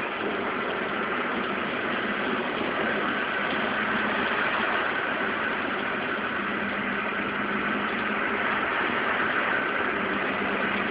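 Honda Hawk ('Bab') parallel-twin motorcycle engine running steadily at idle, making the abnormal noise that the owner fears may mean the engine is near the end of its life.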